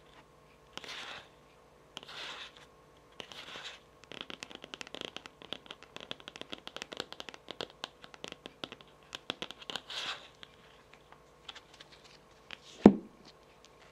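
Long fingernails on a tarot card: slow scratching strokes about once a second, then fast, irregular tapping for several seconds. Near the end there is a single louder knock.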